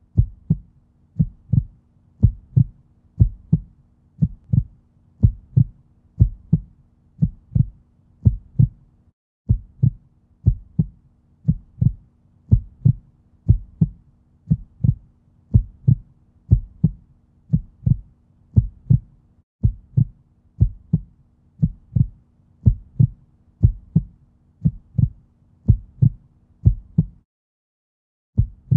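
Steady, evenly spaced low thumps, about two a second, over a faint steady hum, broken by short breaks and a longer pause of about a second and a half near the end.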